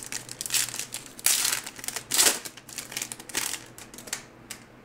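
Wrapper of a trading-card pack being crinkled and torn open by hand: several short crackling rustles, the loudest about a second and two seconds in.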